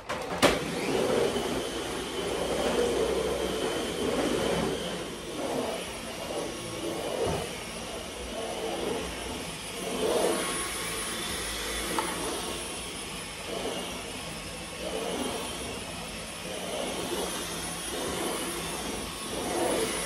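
Cordless stick vacuum cleaner switched on about half a second in, then running with a steady high whine over its rushing suction noise, which swells and dips as it is pushed across the floor and rug.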